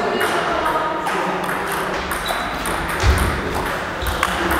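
Table tennis ball clicking back and forth in a doubles rally, sharp ticks of the celluloid-type ball off the bats and the table, with a dull thud about three seconds in.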